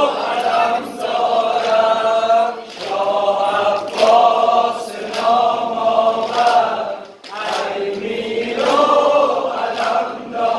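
Men's voices singing a Shia Muharram noha (mourning lament) in unison, led by a reciter's amplified voice, in long drawn-out phrases of a second or two with short breaks between them.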